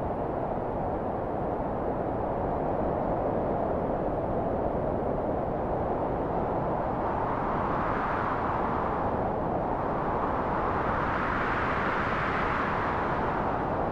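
Wind sound effect: a steady whooshing that rises in pitch about halfway through, falls back briefly, then rises again near the end.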